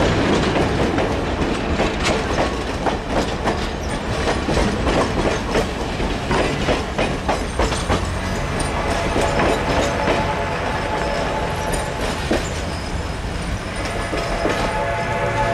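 Steel wheels of passenger coaches rumbling and clicking over the rail joints as the train rolls past close by. Near the end a train whistle begins to sound.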